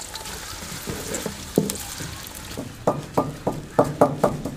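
Sliced onions sizzling in hot oil in an aluminium pot. From about three seconds in, a wooden pestle pounds steadily in a mortar, about three strikes a second, crushing green garlic.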